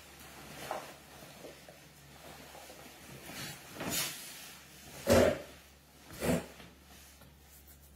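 A few short knocks and rustles of small objects being handled on a desk, the loudest about five seconds in and another about a second later.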